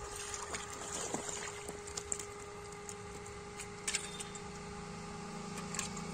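A motor runs steadily in the background, a hum with a few fixed tones that grows stronger from about halfway. Over it come scattered small splashes and clicks of feet and hands in shallow water and a wet woven basket.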